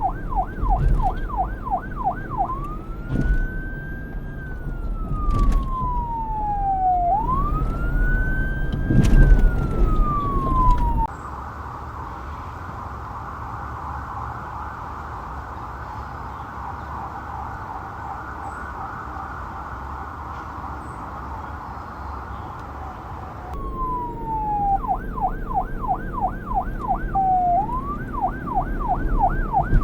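Police car siren cycling through its tones. A fast yelp switches to a slow wail that rises and falls twice. About a third of the way in it cuts abruptly to a quieter, very rapid warble held for around twelve seconds, then the wail and yelp return near the end, with a low rumble under the wail and yelp.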